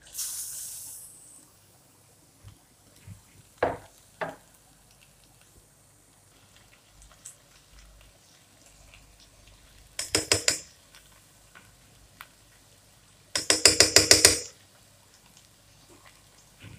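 Kitchen clatter at a cooking pot: a short hiss at the start, two light clinks, then two quick runs of ringing metal taps. The second run has about eight taps and is the loudest.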